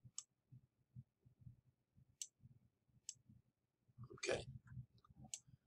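A few faint, sharp computer-mouse clicks, spaced a second or more apart, with a brief soft noise about four seconds in.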